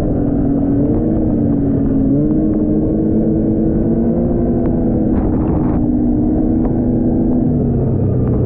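Snowmobile engine running steadily at trail speed, its pitch stepping up about two seconds in and dropping near the end.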